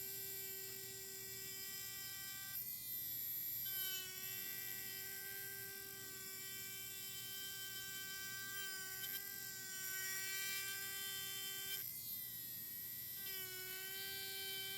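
Rotary engraving tool with a worn ball burr running at a speed setting of about 20, a steady high whine as it scratches through the black powder coating of a Zippo lighter. The pitch wavers and dips twice, around four seconds and thirteen seconds in, as the burr bears on the metal.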